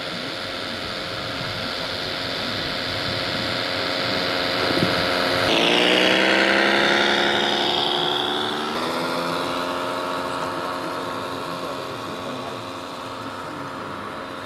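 Simulated diesel truck engine sound from a scale RC truck's sound module, running steadily, then louder for about three seconds in the middle with its pitch shifting as if revving, before settling back to a steady run.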